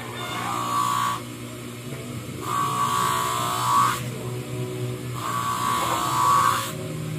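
Motor-driven grinding wheel running with a steady hum while a metal tari blade is pressed against it in three strokes of about a second and a half each, every stroke adding a high grinding hiss.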